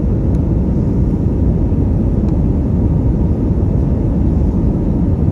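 Steady low rumble of an Airbus A320's turbofan engines and rushing air, heard inside the passenger cabin as the airliner descends on final approach.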